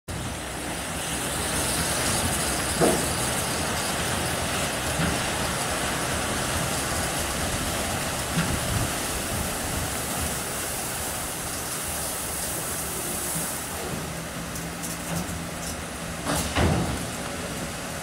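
AA-7VF seven-brush roll-over car washing machine running, its rotating brushes scrubbing a car with a steady rushing hiss. A few short knocks come through, one about three seconds in and a couple near the end.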